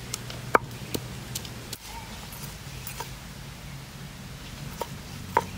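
Stone pestle knocking and grinding on a flat stone slab as garlic cloves and ginger are crushed: irregular sharp knocks and clicks, the loudest about half a second in and near the end.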